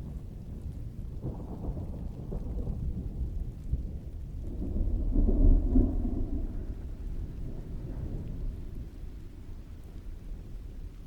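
Distant thunder rumbling, swelling to its loudest about halfway through and then rolling away, over steady rainfall.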